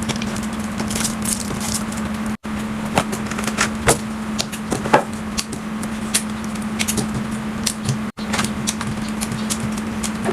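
Fridge restocking: a run of irregular clicks, taps and knocks as containers and packaging are handled and set down, over a steady low hum. The sound cuts out suddenly twice.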